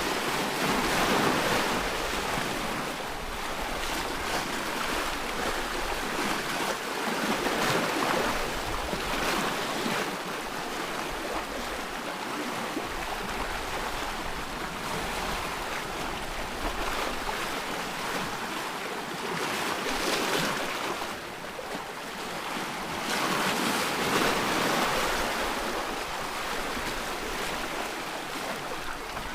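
Ocean surf: waves breaking and washing in a continuous rush that swells and eases every few seconds, with a few louder surges.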